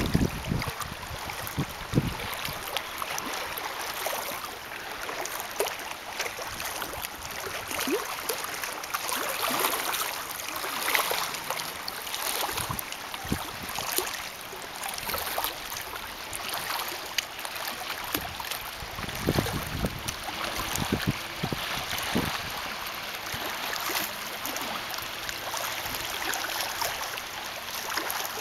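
Wind over open lake water with small waves lapping: a steady rushing hiss, and gusts buffeting the microphone with a low rumble a few times, notably about two seconds in and again near the middle.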